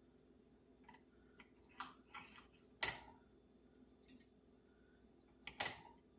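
Cutlery clicking against a plate: a few irregular sharp taps, the loudest about three seconds in and another near the end.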